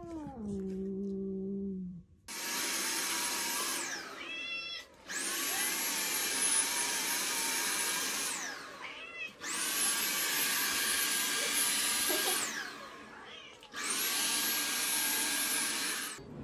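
A cat's falling yowl at the start, then a cordless stick vacuum cleaner switched on and off four times in runs of two to four seconds, its motor whining up and down at each start and stop. A cat meows in the gaps between runs.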